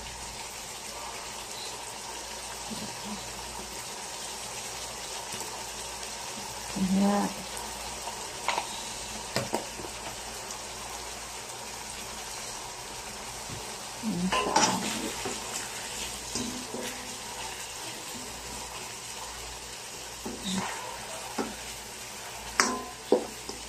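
Chicken pieces sizzling steadily in a wok as they brown in a little oil, before any water is added. A few short knocks and clatters of a spatula against the pan break through, the loudest about fourteen seconds in and several near the end.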